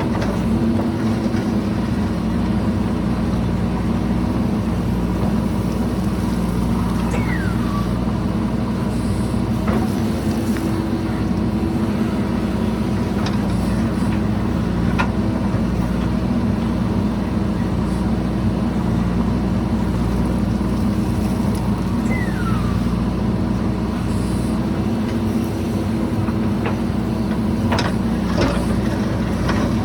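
JCB 3DX backhoe loader's diesel engine running steadily under work, with scattered clanks and two short falling squeaks.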